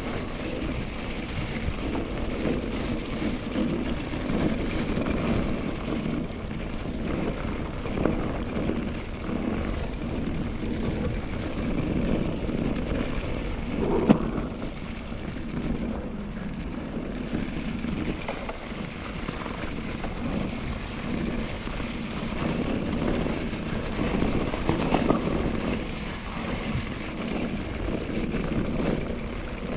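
Mountain bike tyres rolling fast over a forest track covered in dry fallen leaves: a steady noise with small jolts, and one sharp knock near the middle.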